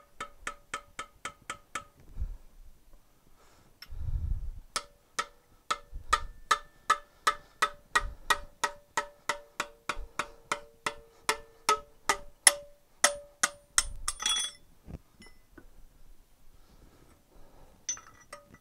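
Soft hammer striking a brass drift to drive the selector fork out of a David Brown 990 tractor's PTO housing. A few quick metallic taps come first, then after a short pause a long run of sharp ringing blows, about three a second. The blows end with a brief metallic rattle about two-thirds of the way in.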